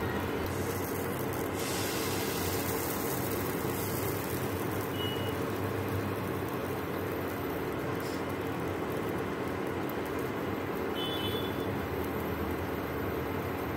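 Steady hum and rush of an induction cooktop's cooling fan running under a pan while it heats.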